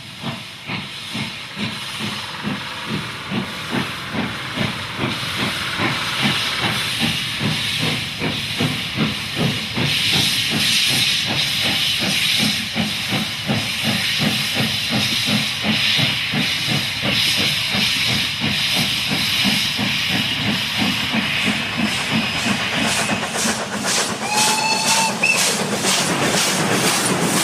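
Steam locomotive working hard, its exhaust beating in a steady rhythmic chuff with a hiss of steam, growing louder as it approaches. A short whistle sounds near the end.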